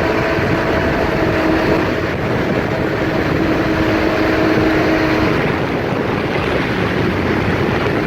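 Watercraft engine running steadily at speed under heavy wind and water rush. The engine's tone drops out about five seconds in, leaving the rushing noise.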